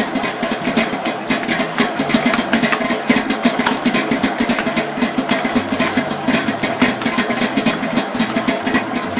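Planetary stand mixer running steadily, its dough hook kneading bread dough in a stainless steel bowl, with a motor hum and rapid knocking of the dough and hook in the bowl. The dough is being kneaded until it is fully developed and elastic.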